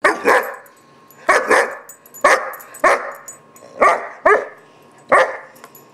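A four-to-five-month-old German shepherd puppy barking in a temper tantrum: about nine loud, sharp barks, mostly in quick pairs with short pauses between.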